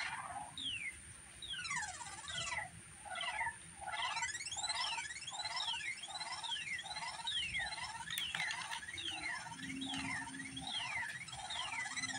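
Electronic sound generator putting out a repeating pattern of chirps: falling pitch sweeps about twice a second, overlapping rising ones, over short pulsing tones lower down.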